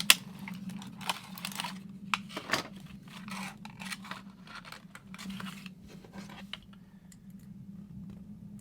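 Small plastic parts and packaging being handled: a sharp click at the start, then irregular clicking, scratching and rustling that die down for the last couple of seconds, over a steady low hum.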